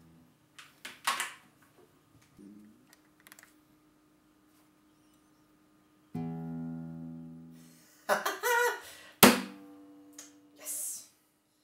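Acoustic guitar: a few short knocks and scrapes first, then a chord strummed about six seconds in and left ringing as it fades. More strums follow, with a sharp loud slap of the strings or body near the end.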